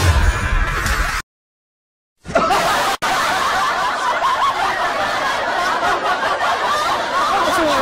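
A loud low rumble that cuts off about a second in, then about a second of silence, then a dense chorus of many high-pitched voices snickering and laughing together, overlapping without a break.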